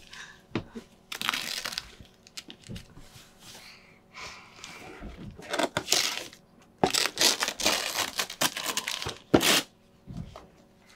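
Wrapping paper being crinkled and torn as a present is unwrapped, in a series of rustling bursts that are busiest and loudest from about seven to nine and a half seconds in.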